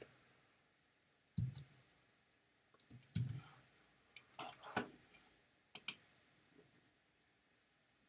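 Computer mouse clicking in a few short irregular clusters with quiet gaps between them.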